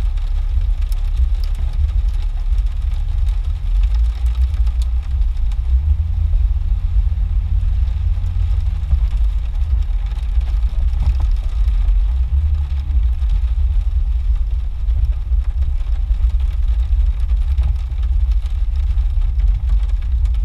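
Jeep engine and drivetrain running at low speed, a deep steady rumble heard from inside the cab while crawling a muddy trail. The engine note rises and strengthens for a few seconds about six seconds in, and again briefly about twelve seconds in, as it pulls over dirt humps.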